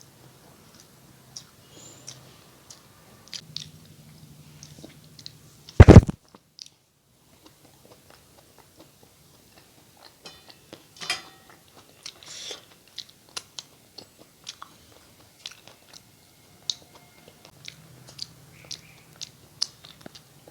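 Close-miked chewing, with wet mouth smacks and small crunches of someone eating a meal of rice and curry. About six seconds in there is one loud, sharp knock, much louder than the eating sounds.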